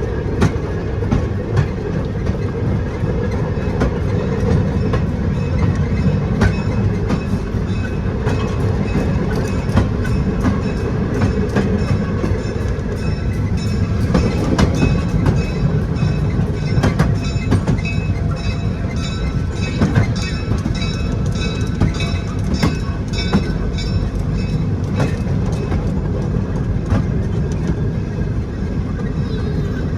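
Passenger train in motion heard from aboard: steady low rumble with frequent clicks of the wheels over the rail joints.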